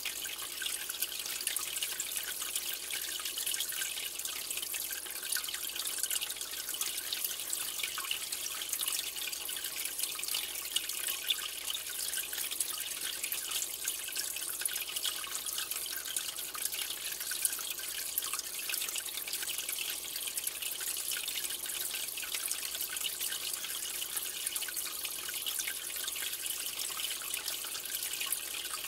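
Aquarium water splashing and trickling steadily: a constant, even hiss of fine splashes with no pauses or changes.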